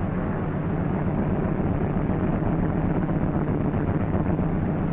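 C-47's twin Pratt & Whitney R-1830 radial engines running at warm-up speed, around 800 to 1,000 RPM, as a steady low drone with even hiss.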